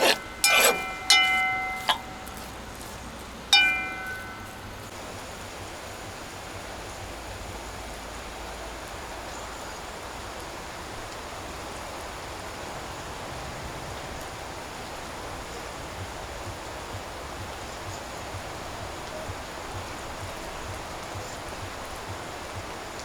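Several metal clinks of utensils against a cooking pot, each ringing briefly, in the first four seconds. After that comes a steady, even hiss.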